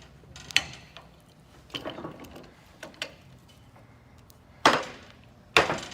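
A few sharp knocks and clanks of a rusty old wrench and tools being handled on a bench, the two loudest near the end.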